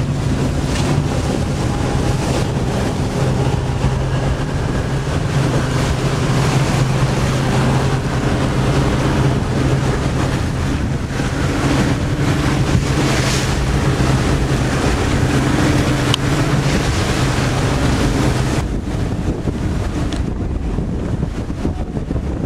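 Small motorboat running at steady speed, its engine a steady low drone under wind buffeting the microphone and water rushing past the hull. About nineteen seconds in the engine tone drops away, leaving wind and water.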